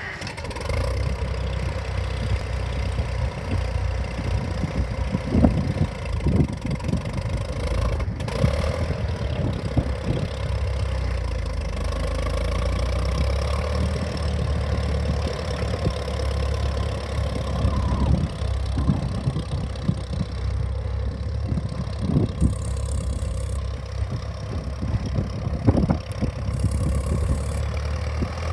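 Farmall Super MTA tractor's four-cylinder engine running steadily as the tractor drives slowly past, with a few short sharp thumps now and then.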